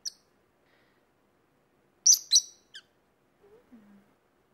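Peach-faced lovebirds chirping: one short chirp at the start, then a loud pair of shrill chirps about two seconds in, followed by a brief third.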